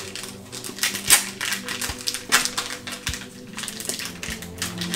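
Plastic wrapping on a trading-card pack being picked at and peeled off by fingers: irregular crinkles and small clicks.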